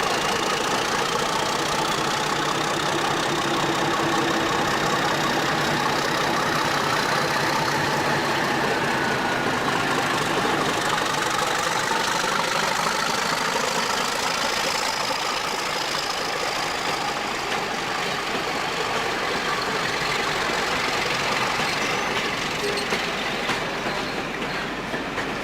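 British Rail diesel train engine running steadily, with a faint whine that drifts slowly in pitch.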